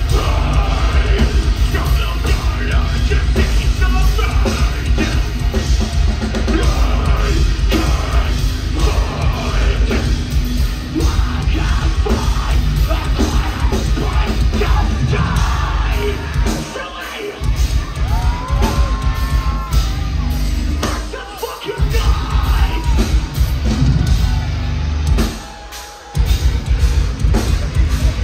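Metalcore band playing live at full volume, with distorted guitars, bass and drums under a screamed vocal. Three times in the second half the band cuts out for a moment and crashes back in.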